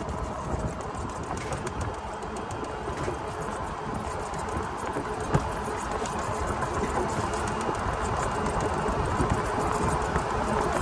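Kandi six-passenger 48-volt electric golf cart driving at about 31 mph on pavement: steady tyre and wind noise from the GTW off-road tyres, with a steady whine, slowly growing louder. One light knock about halfway through.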